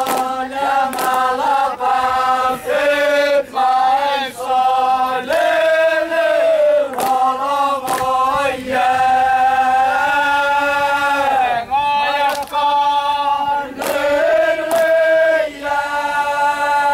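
Group of Yapese dancers chanting in unison, long held notes that step up and down in pitch. A few sharp clacks of bamboo dance sticks are struck at irregular moments under the chant.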